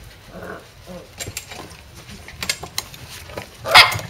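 Corgi puppies pawing and scrambling at a metal door track, with claws clicking and scraping and a faint whimper about half a second in. A louder clatter comes near the end.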